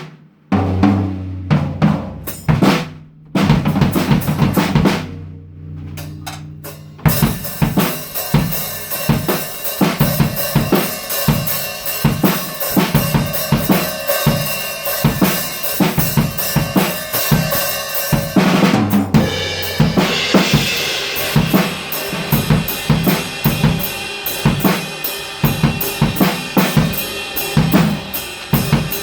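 Drum kit played loud: a few separate tom and kick drum strikes ring out with low tones, then from about seven seconds in a steady beat with snare and cymbals starts. The pattern changes a little past halfway.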